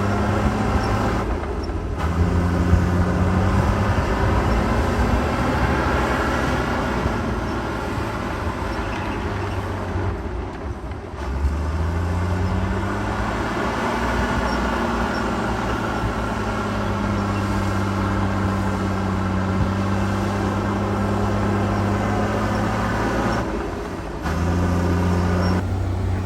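Heavy diesel engine of earthmoving equipment running hard, its pitch rising and falling as the machine works. The sound breaks off and resumes abruptly a few times.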